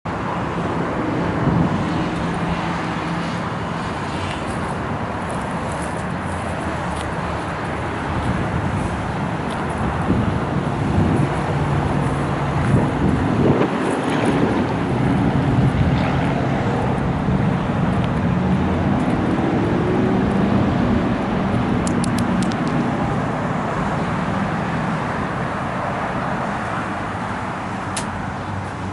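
Steady motor-vehicle noise: a low engine hum that shifts in pitch over a constant wash of noise.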